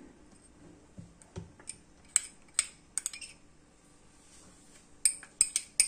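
Metal spoon scraping and clinking against a ceramic bowl as shredded mozzarella is pushed out of it: scattered sharp clicks, then a quick run of taps near the end.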